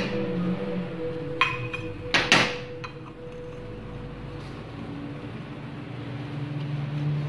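Electric motor's rebuilt rotor spun by hand, humming and fading as it coasts down, with a few sharp knocks from handling the motor, the loudest about two seconds in. Near the end a steady hum rises again as the rotor is turned once more.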